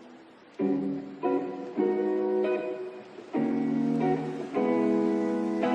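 Background music: a guitar strumming chords, each chord starting sharply and ringing out.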